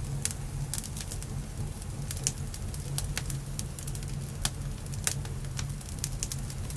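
Wood campfire of dry sticks and split logs burning, crackling with sharp, irregular pops over a low steady rumble.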